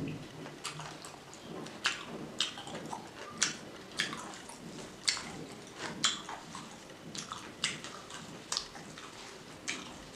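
Close-up wet chewing: sticky, smacking mouth clicks at irregular intervals, about one or two a second, from eating pork and rice.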